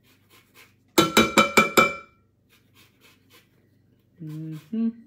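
A rapid run of about eight sharp, ringing clinks lasting about a second, starting about a second in. Near the end there is a brief low hum.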